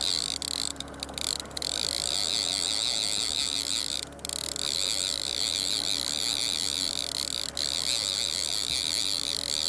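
Fishing reel being cranked steadily, a high whirring ratchet, as a hooked king salmon is reeled toward the boat. The cranking breaks off briefly about a second in and again about four seconds in.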